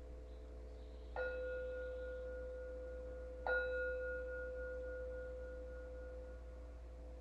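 A singing bowl struck twice, about two seconds apart, each strike ringing on in a slowly fading tone with several overtones over a lingering earlier ring.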